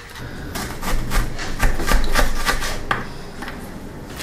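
Kitchen knife slicing a red onion on a wooden cutting board: a quick run of cuts knocking on the board, several a second, thinning out toward the end.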